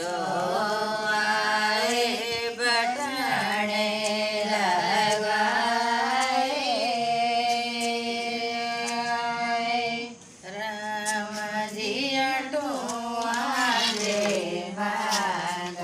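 Women singing a traditional Indian wedding song (shaadi geet) unaccompanied, in long held melodic lines. There is a short break about ten seconds in before the next line starts.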